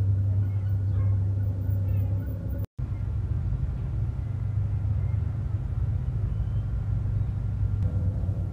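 Steady low rumble of boats moving on open water. In the first two seconds a few faint high cries sound over it. The sound drops out briefly about three seconds in, then the rumble resumes.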